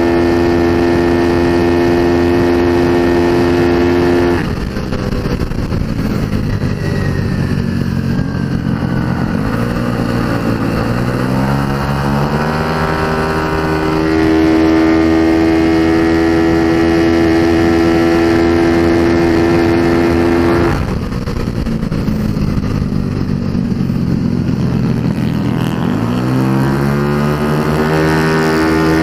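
Race-tuned Yamaha Mio scooter engine, a 230cc four-valve build, heard onboard: it runs at steady high revs, drops off twice as the throttle is closed for corners, about four seconds in and again about two-thirds of the way through, then climbs back up to full revs as it accelerates out.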